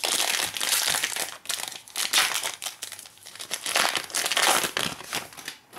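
Foil wrapper of a 2017-18 Prizm basketball card pack crinkling and rustling in irregular bursts as it is torn open by hand and the cards are slid out.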